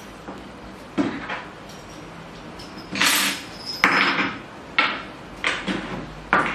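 A handheld power drill being handled and turned over, giving a series of about six separate clunks and short rattles.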